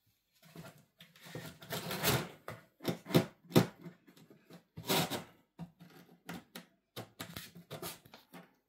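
Cardboard scraping, rustling and knocking as a cat scrabbles about inside a cardboard box and climbs onto a loose flat piece of cardboard; an irregular run of scrapes and thumps, the loudest about two, three and five seconds in, then lighter ticks.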